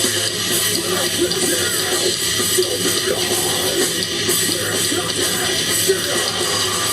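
Live rock band playing a song, loud and dense, with electric guitar.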